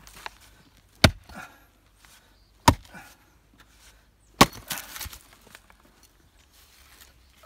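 Axe splitting firewood: three sharp chops about a second and a half apart, each followed by a scatter of smaller knocks, the most after the third.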